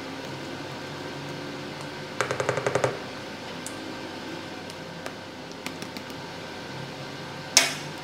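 A utensil knocking against a glass mixing bowl: a quick run of about a dozen rapid taps a couple of seconds in, then one sharp clink near the end, over a steady room hum.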